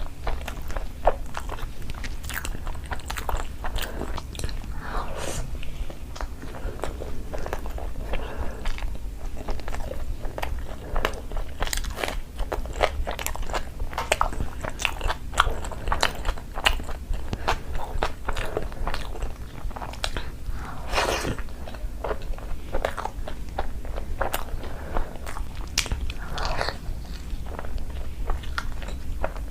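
Close-miked eating of curry with rice and flatbread: a continuous run of wet chewing, biting and lip-smacking sounds, with a steady low hum underneath.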